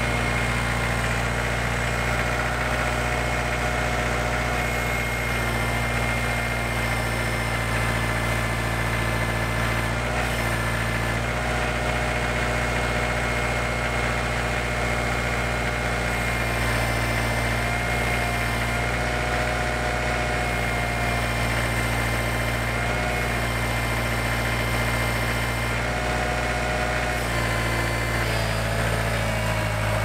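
Kubota compact tractor's diesel engine running steadily while its loader holds up a heavy log, its note shifting slightly near the end.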